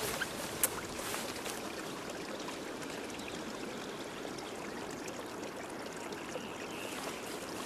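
Steady, even rushing noise like running water, with one brief tick about half a second in.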